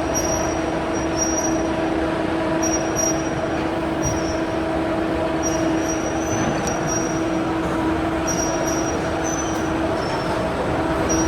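Straw shredding recycling line running: a steady machine drone with a constant hum, and short high squeaks that come and go.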